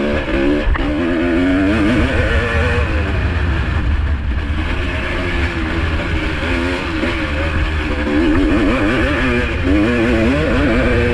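1985 Honda CR250R two-stroke motocross engine revving up and down in quick, repeated swells as the throttle is worked, over a steady low rumble.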